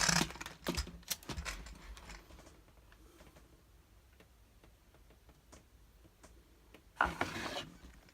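Plastic clicks and rattles of a Lego Technic model being handled: a short scrape right at the start, a run of separate clicks over the next two seconds, then another short scrape near the end.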